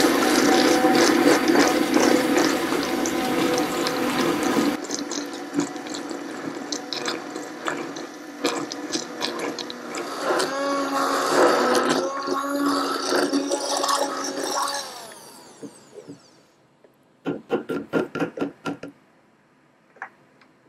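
Hand-held immersion blender running in a plastic pitcher, mixing water and cement into a slurry; its motor note drops in level about five seconds in, runs on, and winds down about fifteen seconds in. Near the end, a quick run of about eight sharp knocks as the blender is tapped on the pitcher.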